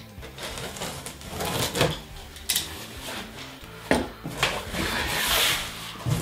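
A cardboard box being opened by hand: packing tape slit and pulled away, and the cardboard knocked and handled, with several sharp knocks. Near the end comes a longer rustling scrape as the flaps are folded open.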